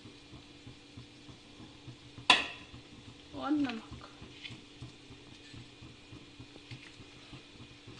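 Faint steady sizzling of potato filling frying in an aluminium kadhai over a gas burner, broken about two seconds in by one sharp metal knock of a spoon against the pan, followed a second later by a brief pitched sound.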